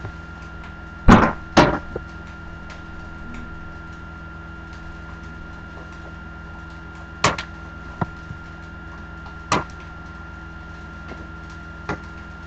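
Knocks and clunks of kitchen work at a counter and stove, with two loud ones about a second in and more around seven and nine and a half seconds, over a steady hum.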